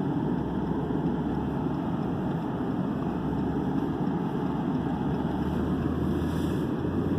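Car cabin noise while driving: a steady low engine hum and tyre and road rumble.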